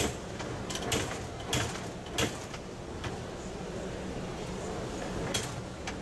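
Sliding window sash being moved in its frame, with a few sharp knocks and clicks as it meets the sash lock, over steady background noise.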